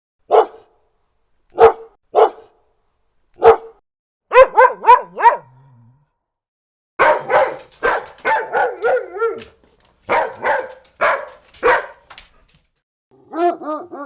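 A big dog barking. First come single barks spaced a second or so apart, then a quick run of four. After a short pause it barks in dense runs until near the end.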